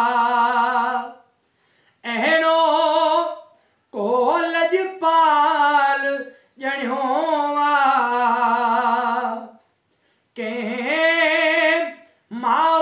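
A man singing a Sindhi naat unaccompanied, drawing out long held notes with a wavering vibrato in about five phrases, with short breaks between them.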